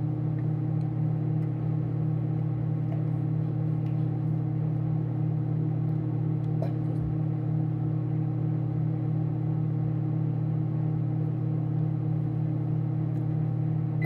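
Microwave oven running with a steady low hum while it heats ramen noodles in water. The hum cuts off at the very end as the cooking cycle finishes.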